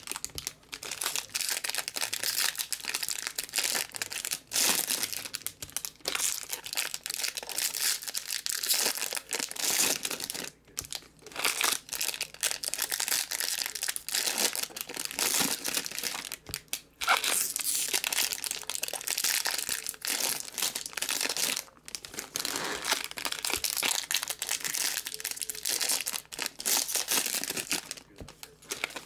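Foil wrappers of 2019 Bowman Jumbo baseball card packs crinkling and tearing as the packs are handled and ripped open. It is a near-continuous rustle broken by a few short pauses.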